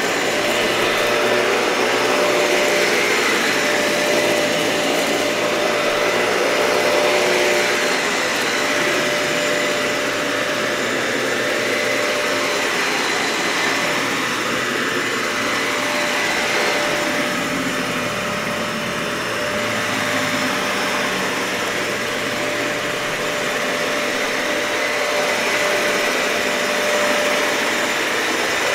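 Dyson vacuum cleaner running steadily on carpet: a constant motor whine over airflow noise, swelling and dipping slowly in level.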